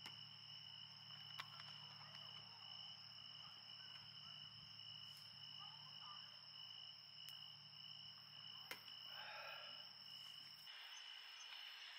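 Faint steady chirring of night insects such as crickets, with a low hum that stops near the end. A few light clicks mark small items being set down on a metal camp table.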